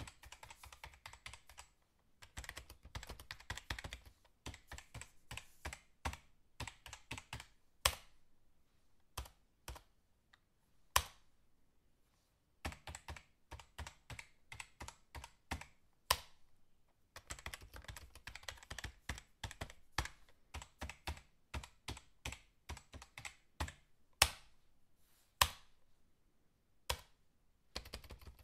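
Fast typing on a computer keyboard: rapid runs of key clicks in bursts of a few seconds, broken by short pauses and now and then a single louder key strike.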